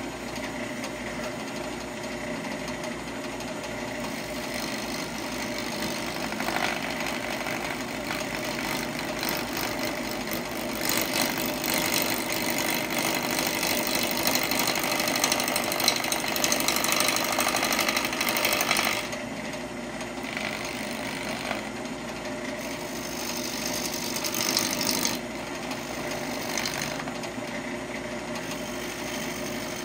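Wood lathe running steadily with a wooden workpiece spinning and being worked, with louder spells of hissing where the tool or abrasive bears on the wood: a long one in the middle and a shorter one near the end.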